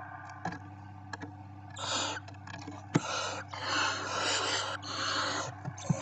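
Barn owl chicks hissing in the nest: harsh, breathy hisses in repeated bursts of half a second to a second, starting about two seconds in, after a few faint clicks of movement. These are the chicks' begging hisses.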